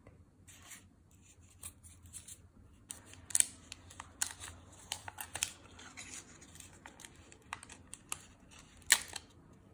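Paper crinkling and crackling as the twisted paper wrapper of a soft caramel is untwisted and peeled open by hand: irregular crisp crackles, the sharpest about three and a half seconds in and again near the end.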